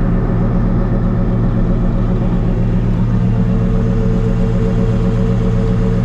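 Older John Deere combine heard from inside the cab, running at a steady drone while its unloading auger empties the grain tank into a wagon. A higher steady tone joins the drone about three seconds in.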